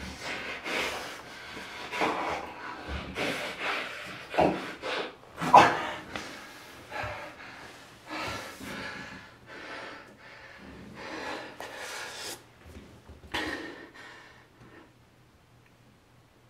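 A man's heavy snorting breaths and wet mouth noises as he feeds like a vampire at a bloodied neck, in irregular bursts that grow quieter and die away near the end.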